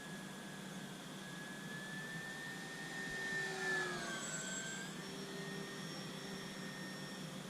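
RC model Cessna 182's motor and propeller whining in flight. The pitch sags and then drops as the plane passes by about four seconds in, where it is loudest.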